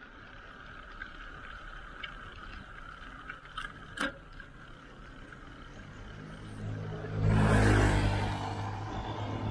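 A motor vehicle passes close by on the road. Its engine builds up about six seconds in, is loudest around eight seconds, then fades a little. Before it there is faint steady road noise with a few light clicks.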